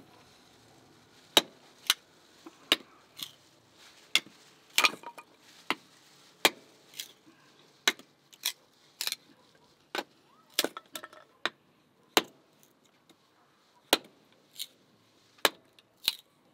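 Hatchet chopping firewood into kindling: a string of sharp knocks of the blade biting into the wood, irregular, about one or two a second, with a brief pause before the last few strokes.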